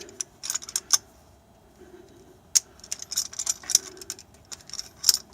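Metal hand tools clinking and clicking in quick irregular bursts, with a pause of about a second and a half between two clusters.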